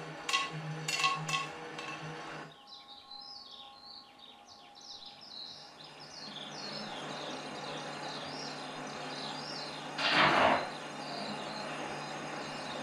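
Film soundtrack over a hall's speakers: percussive music with wood-block-like strokes stops about two and a half seconds in and gives way to chirping birds over a low hum and a slowly rising noise, with one loud noisy burst about ten seconds in.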